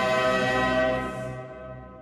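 Choir and orchestra holding a sustained chord that starts dying away about a second in, fading into the reverberation.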